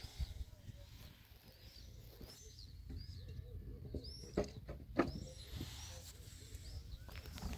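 Small songbird chirping, short high arched notes repeated every half second or so. Two sharp knocks about four and a half and five seconds in, over a low rumble.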